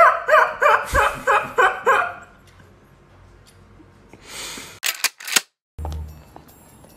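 A woman laughing in quick, high-pitched bursts, stopping about two seconds in; later a short breathy sound and two sharp clicks.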